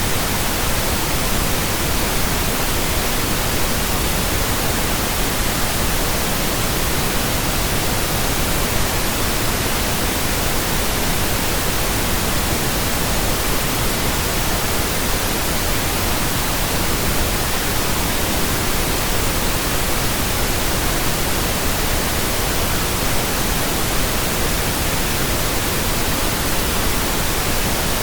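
Steady synthesized pink noise: an even, unchanging hiss with no tones, clicks or breaks.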